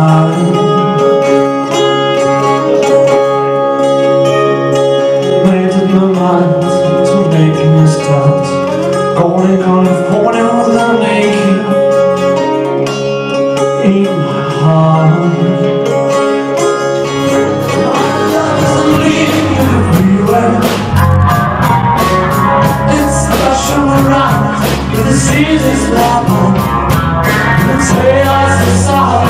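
Rock band playing live: a male lead voice sings over acoustic guitars, and a little over halfway through the bass guitar and drums come in and the band plays on at full strength.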